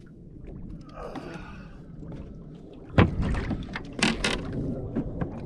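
Knocking and clatter of fishing gear in a small boat while a hooked fish is played: one loud knock about three seconds in and two sharp clacks a second later, over steady wind and water noise.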